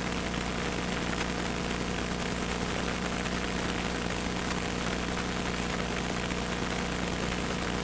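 Single-engine propeller airplane's engine and propeller droning steadily, heard from inside the cockpit, with a broad rushing noise over it.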